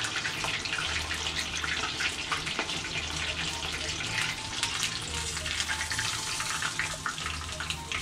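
Flour- and egg-coated chicken thigh pieces deep-frying in a pot of oil: a dense, steady crackling sizzle with many small pops.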